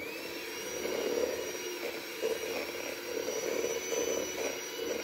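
Electric hand mixer running steadily, its beaters whirring through a bowl of creamed butter, sugar and eggs. The motor's whine rises in pitch as it spins up at the start, then holds steady.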